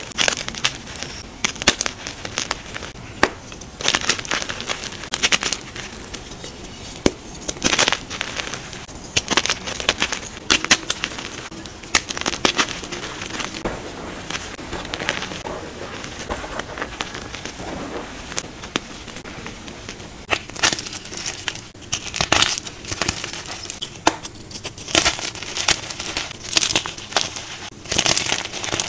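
Blocks of dyed gym chalk crushed and crumbled in the hands, giving irregular crunching and crackling as the powdery chalk breaks apart.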